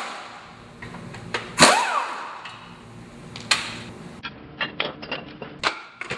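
An impact wrench fires in short bursts on the bolts of a front strut and knuckle assembly: the loudest about a second and a half in, a weaker one about two seconds later. Then come a run of short metal clicks and clanks as the parts are handled.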